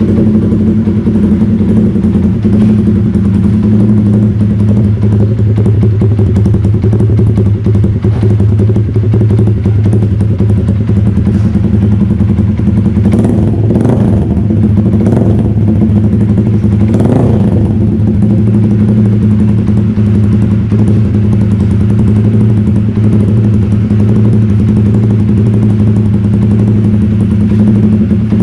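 Yamaha Sniper 150 single-cylinder motorcycle engine running through a freshly fitted SC Project-style aftermarket exhaust, idling steadily with a few short throttle blips about halfway through.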